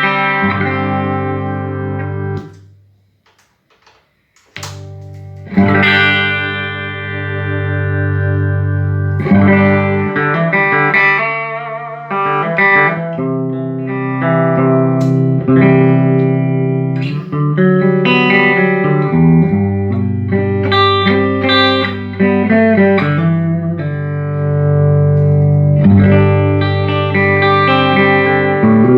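Electric guitar played through a freshly restored 1975 Fender Twin Reverb silverface master-volume amplifier: ringing chords and picked notes, with a brief pause about three seconds in before the playing resumes.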